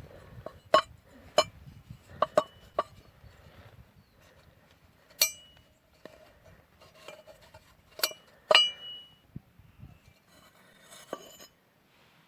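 Metal tools clinking and knocking against metal in irregular sharp strikes, some ringing briefly.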